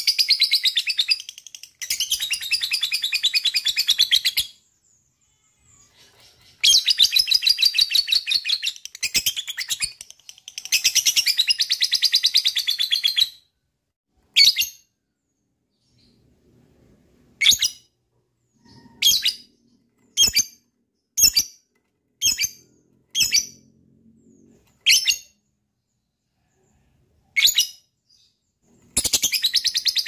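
Lovebird 'ngekek': long runs of very rapid, shrill chattering trill, each two to three seconds long, four of them in the first half. Then comes a string of single short sharp chirps, one to two seconds apart, and another long chattering run starts near the end.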